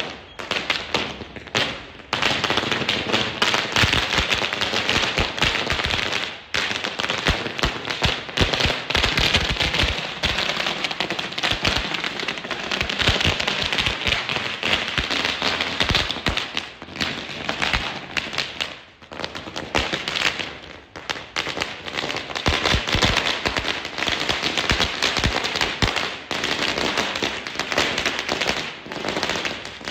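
Firecrackers going off on the ground in a rapid, continuous barrage of sharp bangs and cracks, with a few brief pauses.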